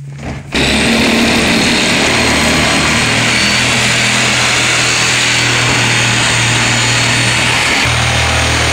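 Corded reciprocating saw starting about half a second in and running steadily as its blade cuts through the plastic wall of an IBC tote, with a slight shift in its pitch near the end.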